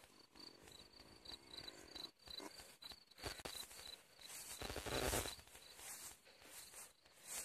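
Crickets chirping, a high, evenly pulsed chirp that fades about four and a half seconds in, with rustles in the grass, the loudest about five seconds in.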